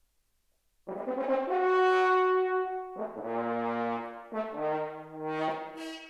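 Solo French horn: after a second of silence it enters with a loud sustained note, then plays a few further held notes of changing pitch, the last one higher, fading near the end.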